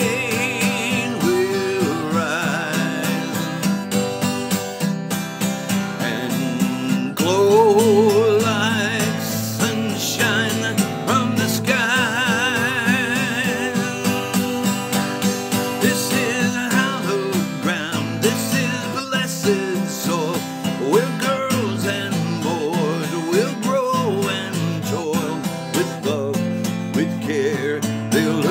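Country-style song in an instrumental passage: a lead melody line wavering in vibrato over a steady accompaniment with a regular beat.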